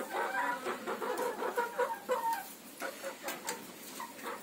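Domestic hens clucking, a run of short calls, as feed is put out for them.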